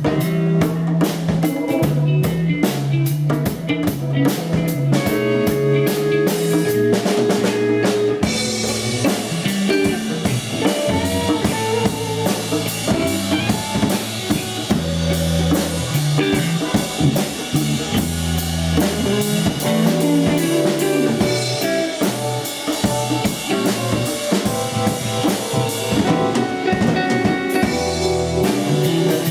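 A rock band playing live at soundcheck: a drum kit keeps a steady beat with kick and snare under held bass notes, and a bright high wash of cymbals fills the sound out from about eight seconds in.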